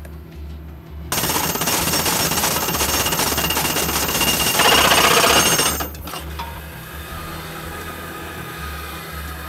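Truck-mounted Allec ground rod driver rapidly hammering a ground rod deeper into the soil, starting about a second in, growing louder, then stopping abruptly about six seconds in, leaving a steady low hum.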